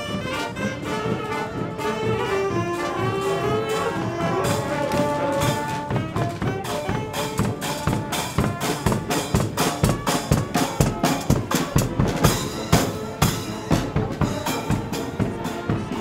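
Street brass band playing: saxophones and trumpets carry a melody over bass drum and snare. From about six seconds in the drums come to the fore with a steady, driving beat.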